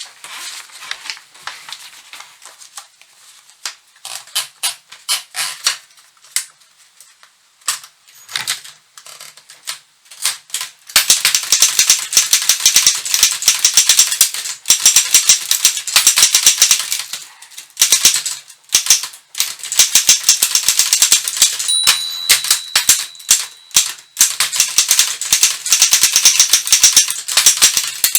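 1952 Continental Standard manual office typewriter being typed on. There are a few scattered keystrokes at first, then about eleven seconds in, fast continuous typing with the type bars clattering against the platen, broken by a few short pauses.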